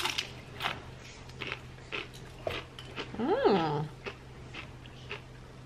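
A person biting into a crunchy chip and chewing it, with a sharp crack at the first bite and a run of crunches after. About halfway through comes a short hummed "mmm" that rises and falls in pitch.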